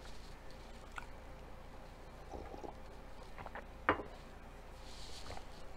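A person chewing a big mouthful of sandwich with the mouth closed: faint wet mouth clicks, with one sharper smack about four seconds in.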